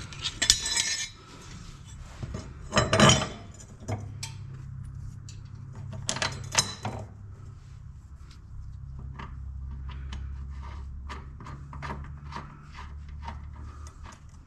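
Metal clinks, taps and knocks of hand tools and hardware while a mower blade is fitted to the deck, with a few louder clattering bursts and a low steady hum from about four seconds in.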